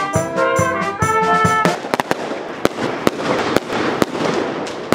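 A small band with trumpets and drums plays for about a second and a half, then cuts off abruptly. Fireworks follow: a dense crackle with scattered sharp cracks.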